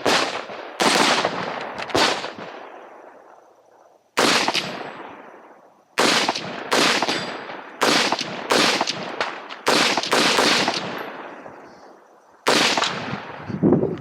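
Semi-automatic rifle with a muzzle brake fired in an IPSC rifle stage: about a dozen sharp shots in irregular groups, some in quick pairs, others a second or two apart, each followed by a long echo that dies away.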